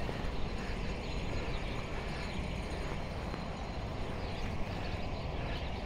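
Steady outdoor street background noise with a low rumble and no distinct events.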